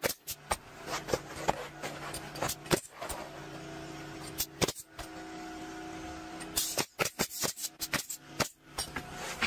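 Pneumatic roofing nail gun firing nails through asphalt shingles: sharp single shots every second or so, with a quick run of shots about three-quarters of the way through, over a steady hum.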